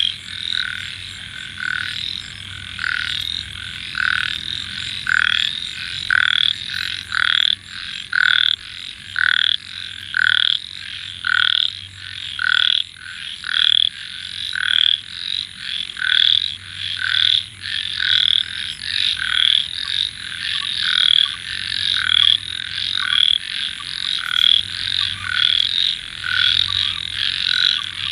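A chorus of many frogs calling together in the monsoon, short repeated croaks overlapping at about two a second.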